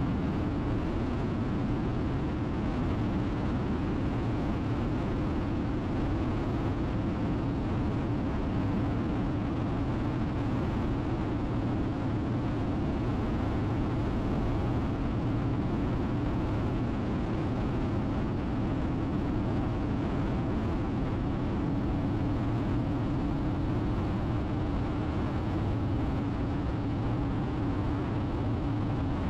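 Harley-Davidson Road King's V-twin engine running steadily at highway cruising speed, a low drone under constant wind rush, with no change in speed.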